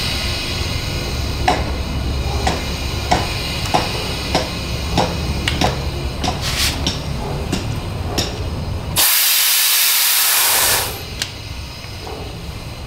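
Compressed air hissing out of the sandblaster's air line in one loud burst of about two seconds, about nine seconds in, then cutting off. Before it, a run of light clicks about every half second over a low steady hum.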